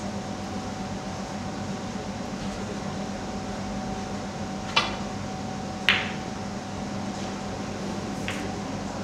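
Snooker shot: a click of the cue tip on the cue ball, then about a second later a louder, sharper click of the cue ball striking an object ball, with a fainter ball click near the end. A steady hum runs underneath.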